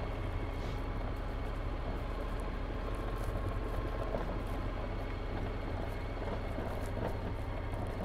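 Honda NC750X's parallel-twin engine running steadily while the motorcycle is ridden.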